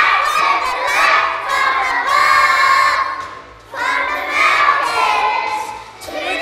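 A group of young children singing loudly together, close to shouting, in short phrases with a brief break about three and a half seconds in.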